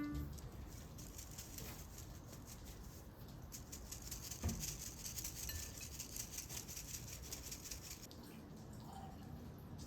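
Small dried anchovies pattering faintly in a mesh sieve as it is shaken to knock off the fine anchovy powder, a dense run of tiny rapid ticks.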